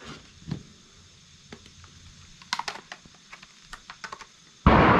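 Scattered light clicks and taps as goggles and their strap are fitted onto a motorcycle helmet. Near the end comes a single loud gunshot from a deer hunter, its report echoing away over a couple of seconds.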